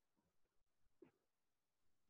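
Near silence: room tone, with one faint short sound about a second in.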